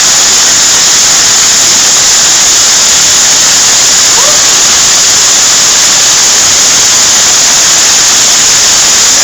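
Very heavy hail coming down, a loud, dense, unbroken roar of hailstones pelting the ground and the house.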